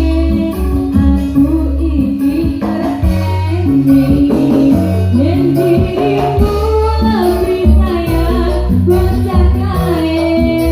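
Live electone band music: an electronic keyboard melody over bass and percussion, played without a break.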